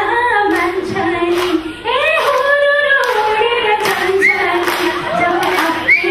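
A woman singing a Nepali song into a microphone in long, held notes that slide between pitches, with scattered hand claps from the audience.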